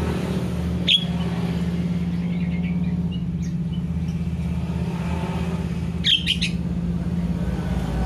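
Caged Asian pied starling and sooty-headed bulbul calling back and forth: one sharp call about a second in, a few faint ones, then a quick run of several sharp calls about six seconds in. A steady low hum runs underneath.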